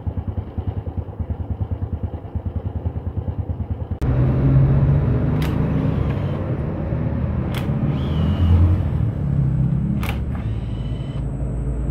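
Honda Revo Absolute single-cylinder engine idling with a steady, even pulse and the rattle that the mechanic traces to a worn cam chain tensioner roller. About four seconds in it gives way to a cordless impact wrench working the engine cover bolts, with a few sharp clicks.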